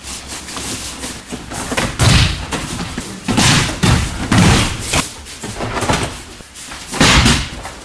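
Bodies falling onto training mats in throws and breakfalls: a series of heavy impacts about a second apart, with a loud one near the end.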